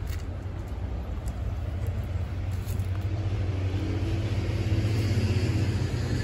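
Low rumble of outdoor background noise, growing a little louder past the middle, with a faint steady drone coming in about halfway.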